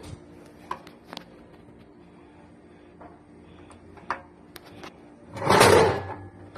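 Light clicks and taps of a screwdriver on the screw terminals of a step-down transformer's terminal block, over a faint steady hum. Near the end comes a loud rustling scrape lasting under a second.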